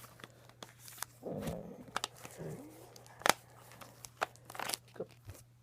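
Scattered crinkles and sharp clicks of plastic card packaging and sleeves being handled and unwrapped, with one sharper snap about three seconds in, over a steady low hum.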